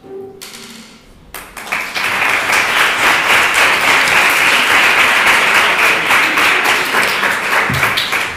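A classroom of students applauding: clapping starts about a second and a half in, quickly builds to a dense, steady round and eases off near the end.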